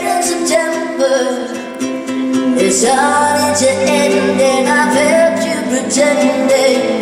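Live song performance: a woman sings long, bending notes over sustained band accompaniment. The voice becomes fuller about three seconds in.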